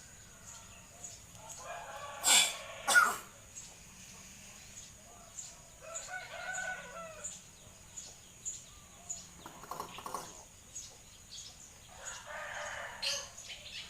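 Hill myna calling and chattering: two loud, harsh calls about two and three seconds in, then quieter bursts of babbling chatter.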